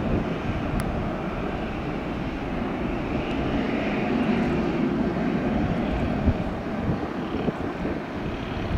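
Airbus A320-214's twin CFM56-5B turbofan engines at climb thrust as the airliner climbs away after takeoff: a steady jet roar that swells a little about four seconds in and then eases slightly.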